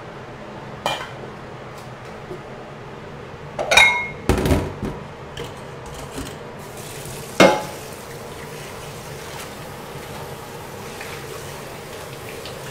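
Stainless steel bowls and a mesh strainer being handled in a stainless steel kitchen sink: a few sharp metallic clanks and knocks that ring briefly, the loudest about four and seven and a half seconds in, over a steady background hiss.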